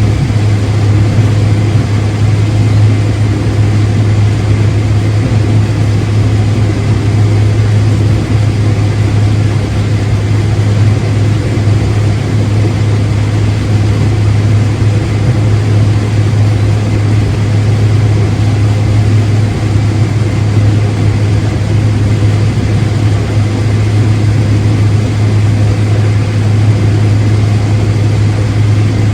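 Diesel engine of harvest farm machinery running steadily, with a strong, even low hum.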